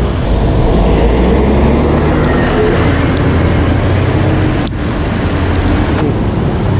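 Road traffic running alongside a moving bicycle, under a steady low rush of wind on the handlebar camera's microphone. Two short sharp clicks come near the end.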